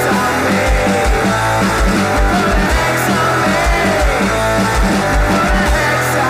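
Garage rock song with electric guitar over a steady drum beat. Near the end the drums stop and a chord is left ringing.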